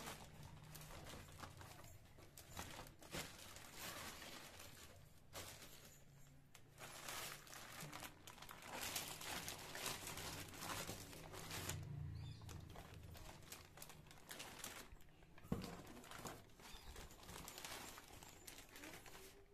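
Plastic carrier bags crinkling and rustling in irregular bursts as hands rummage through them and the packets inside a cardboard box, with one sharp tap about fifteen seconds in.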